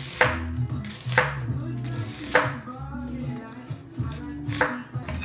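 Kitchen knife chopping vegetables on a cutting board: four separate cuts, roughly one every second or so, with a longer gap before the last. Background music plays underneath.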